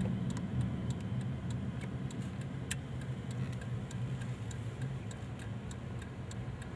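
Car interior sound while driving: a steady low engine and road hum with repeated light ticks throughout.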